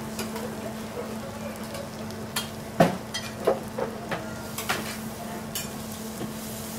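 Food sizzling on a hot teppanyaki steel griddle over a steady low hum, with a handful of sharp clinks and knocks around the middle.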